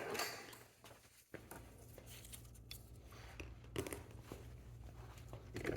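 Faint scraping and a few light clicks as a car's rear door handle is worked and slid loose from the door.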